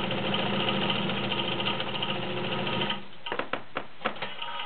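All-metal Kenmore 1203 sewing machine running at a steady speed, stitching a zigzag whose width is being widened and narrowed as it sews. It stops abruptly about three seconds in, and a few sharp clicks and knocks follow.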